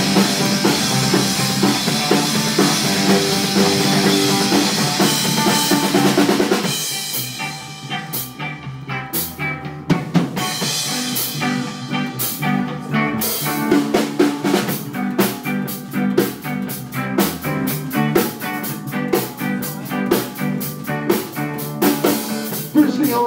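Live rockabilly band playing: drum kit, upright bass and electric guitars. About seven seconds in the full, dense sound drops away to a sparser part of separate drum hits and bass notes, which builds back up with steady, quickening drum strokes.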